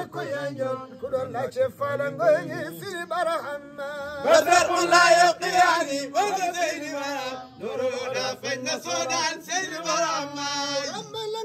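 Male voices chanting a devotional praise song in a wavering, ornamented melody, loudest in the middle.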